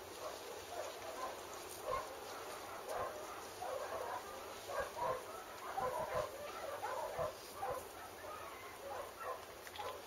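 Dogs barking faintly, many short barks at irregular intervals, busiest around the middle.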